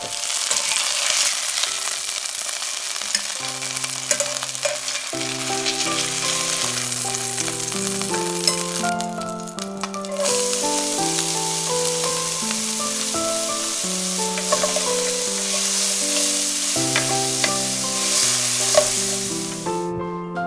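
Flour-coated chicken breasts frying in hot oil in a stainless-steel pan, a steady sizzle. The sizzle breaks off for about a second near the middle, resumes as a spatula stirs the pan, and stops near the end.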